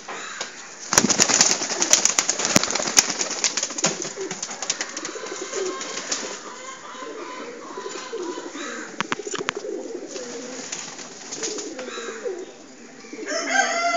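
Domestic pigeons cooing in a loft, a low warbling coo that carries on throughout. A burst of sharp clatter about a second in lasts a couple of seconds, and a higher pitched call starts near the end.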